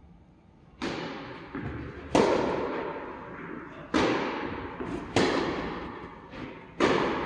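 Tennis rally: rackets striking the ball back and forth, with fainter ball bounces in between. The sharp hits come every second or two and each one echoes.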